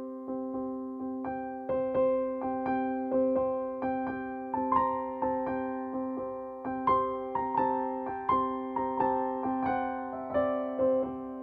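Background music: gentle electric piano playing a repeating pattern of notes, about two a second, over a held low tone.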